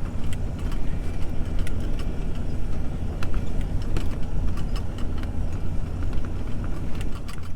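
Vehicle engine idling steadily with a low rumble, with scattered light clicks over it.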